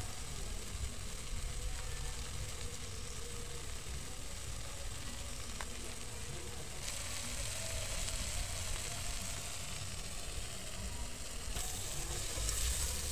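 Omena fish with tomatoes and spices frying in a metal pot, a steady sizzle that grows louder about seven seconds in. A spoon stirs the pot near the end.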